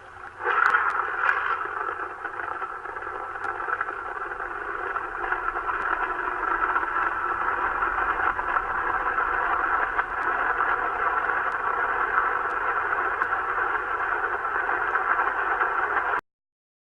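A steady, distorted droning with several held tones, a recording of the mysterious 'strange sounds' reported heard from the sky; it cuts off suddenly near the end.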